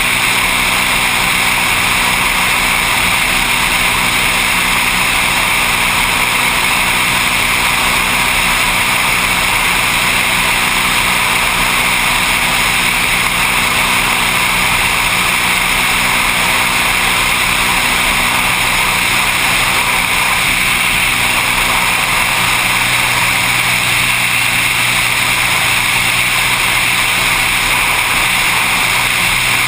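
Floatplane's piston engine and propeller running at a steady, unchanging drone, with a strong rush of air noise over it.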